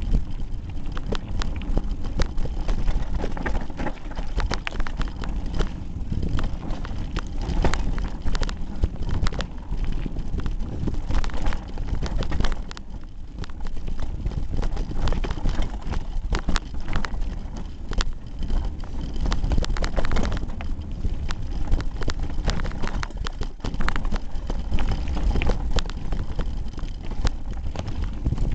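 Hardtail mountain bike clattering over a rocky trail, heard through a camera taped to the handlebars: a constant run of irregular rattles and knocks from the bars and frame, over a low rumble of wind and tyres. It eases briefly about halfway through.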